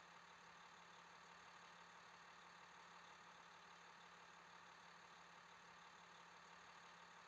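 Near silence: a faint, steady low hum that does not change.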